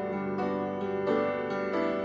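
Instrumental background music: a keyboard melody with new notes every half second or so over a steady held tone.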